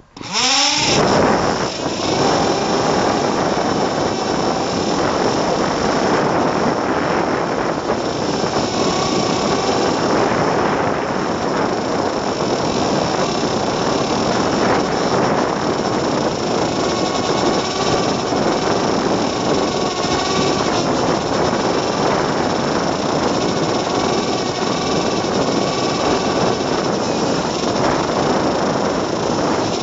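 Twin small electric motors and propellers of a PowerUP FPV paper airplane spinning up sharply at the start, then running with a loud, steady buzz mixed with air rushing past the onboard camera in flight.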